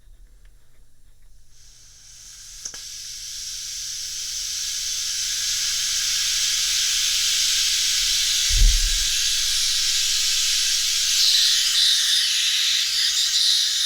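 Compressed air hissing out of the ATC spindle's pneumatic lines, starting a second or two in and building to a loud, steady rush: air escaping where it has not yet sealed. A low thump partway through.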